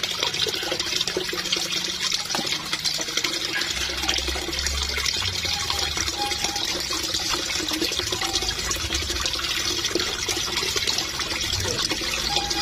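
Steady splashing and churning of pond water as a crowd of koi thrash at the surface, feeding on floating pellets.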